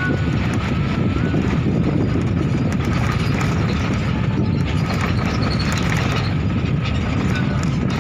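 Steady low rumble of wind buffeting the phone's microphone, with faint high tones and light clicks over it.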